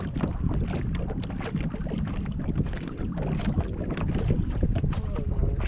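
Wind buffeting the microphone, with small waves lapping and slapping irregularly against the hull of a small aluminum boat.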